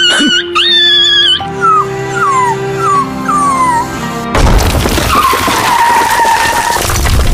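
A dog whining in wavering, high cries, then several short falling whimpers about every half second, over background music. About four seconds in, a car sound starts suddenly: a loud rush of noise with a tyre screech.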